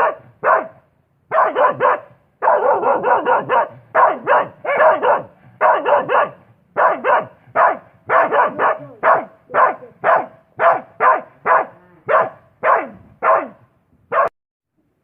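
A dog barking over and over, about two barks a second with a few short pauses, then stopping suddenly near the end.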